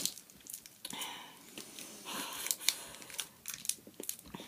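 Plastic Warheads candy wrappers crinkling and tearing as they are unwrapped by hand, a run of sharp irregular crackles.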